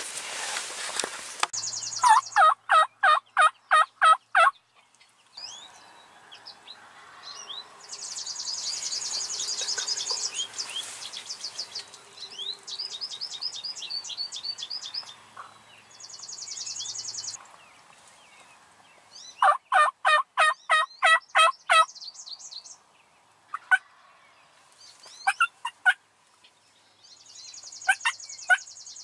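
Hen turkey yelps made on a turkey mouth call (diaphragm call): two loud series of about nine evenly spaced notes, the first about two seconds in and the second about two-thirds of the way through, with a few single notes near the end. Songbirds trill faintly in between.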